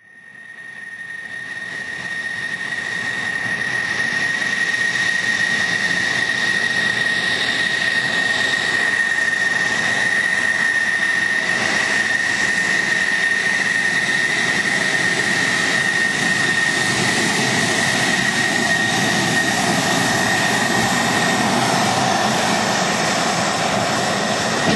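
Aircraft engine running steadily: a constant high whine over a broad rushing noise, fading in over the first few seconds.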